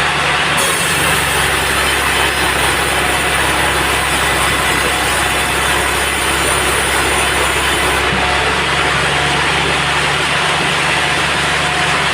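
Band sawmill running steadily, its engine humming under a dense mechanical noise. A harsher high hiss comes in about half a second in and stops about eight seconds in, as the blade cuts through a teak log.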